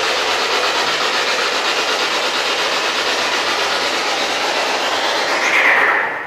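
Spirit box sweeping through radio stations: loud, rushing static with a fast, stuttering flutter. It cuts off abruptly near the end.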